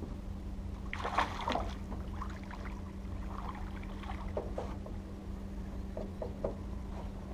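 Hooked largemouth bass splashing at the water's surface as it is fought to the side of the boat, in irregular bursts about a second in and again around four seconds in, with a few short sharp splashes near the end as it is landed. A steady low hum runs underneath.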